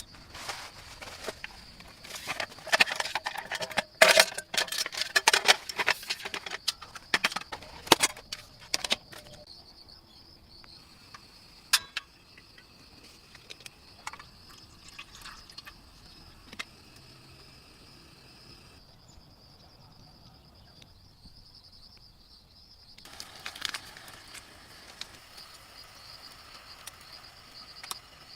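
Night insects chirring in a steady high-pitched drone throughout. Close rustling and clicking fill the first nine seconds, there is a single sharp click about twelve seconds in, and a short burst of rustling comes near the end.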